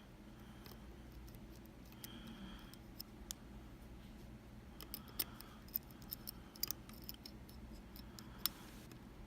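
Small metallic clicks and light scraping from lock picks working the pins of a Kaba Quattro S dimple lock, with a cluster of clicks about five to seven seconds in.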